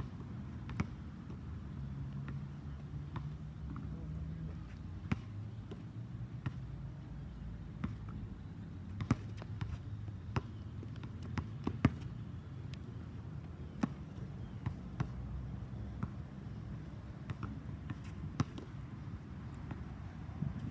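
Basketball bouncing on a hard outdoor court: irregular dribbles, a second or so apart, over a low steady background rumble.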